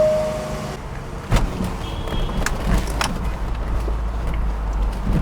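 A short beep, then a thump about a second in, then the low steady rumble of the Land Rover as it pulls away on a test drive after new control-arm bushings and brake pads.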